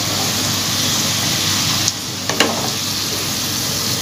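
Egg-battered potato fries deep-frying in hot oil in a karahi, a steady sizzle, while a wooden spatula turns them in the pan. A couple of sharp knocks come about halfway through.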